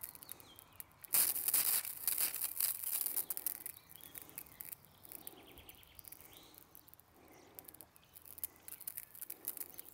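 Mains water sputtering and hissing out of the Güde GHD-225 pressure washer's spray lance with the motor off, as trapped air is bled from the hose and pump. It starts about a second in, spits for a few seconds, then dies down to a faint flow.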